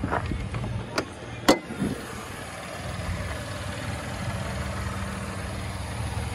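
Chevrolet Colorado ZR2's 3.6-litre V6 idling steadily. Sharp clicks about one and one and a half seconds in, the second the loudest, as the hood latch is released and the hood lifted.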